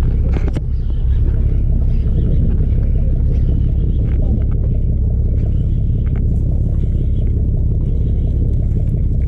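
Steady low rumble of a sportfishing boat's engines running, with a few faint clicks.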